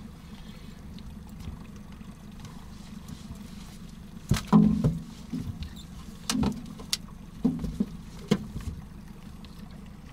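Several sharp knocks and thuds on the aluminium boat while an angler plays a hooked fish on a bent spinning rod, the loudest about four and a half seconds in, over a steady low hum.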